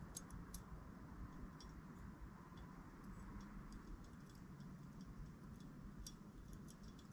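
Faint, irregular small clicks and taps of hands handling the parts of a Primus Omnifuel camping stove, over a quiet steady hiss. The clicks bunch together in the first second and again near the end.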